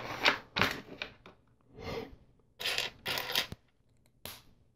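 LEGO plastic pieces being handled and pressed together: a series of short, irregular clicks, rubs and scrapes of plastic on plastic.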